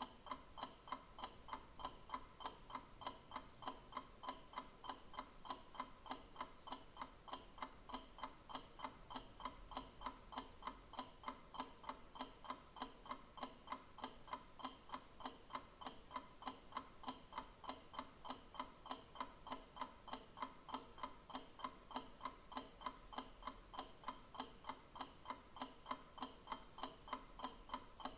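Clock ticking steadily with even, regular ticks.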